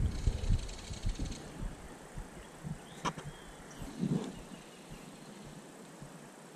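Baitcasting reel, its spool whirring fast for about the first second and a half, then a sharp click about three seconds in and a short knock of handling as the hand goes to the reel's crank handle.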